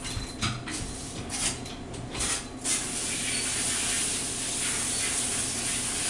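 Commercial pre-rinse spray valve hosing water onto a perforated polyurethane floor mat on a stainless dish table: a few short spurts at first, then a steady spray from about three seconds in.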